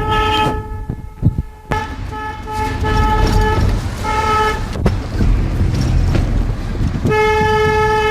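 Car horn honking as wedding-convoy celebration: a string of short beeps, then one long held blast near the end, over steady road and engine noise.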